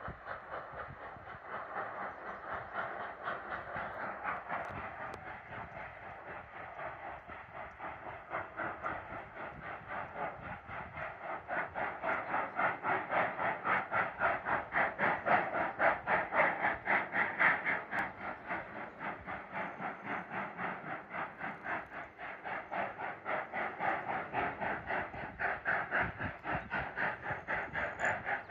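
Cumbres & Toltec narrow-gauge steam locomotive heard across a valley, its exhaust chuffing in a quick, even beat. It swells louder midway, eases a little, then grows again near the end.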